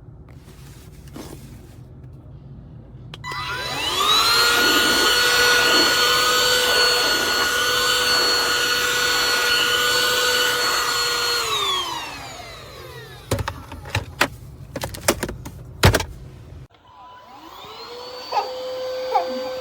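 eufy HomeVac H11 cordless handheld vacuum switched on. Its motor whine rises about three seconds in, runs steady, then winds down a little after ten seconds. A few sharp clicks and knocks follow, and the motor spins up again near the end.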